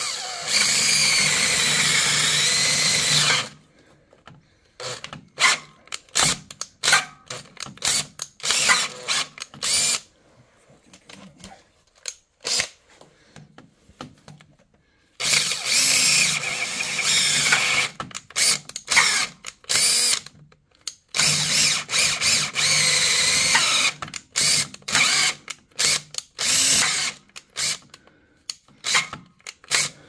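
Makita cordless drill boring through a sheet-metal panel with a larger bit, widening a pilot hole. It runs in long pulls of several seconds, at the start and again from about 15 to 27 seconds in, with many short trigger bursts in between and near the end, its whine rising and falling as the trigger is squeezed.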